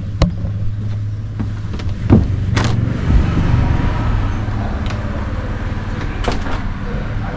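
A steady low engine drone with a few scattered knocks and clatters on top.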